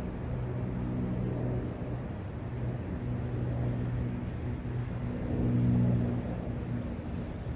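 Forest brook ambience: a steady rushing hiss under a low droning hum that fades in and out, swelling loudest a little before the end.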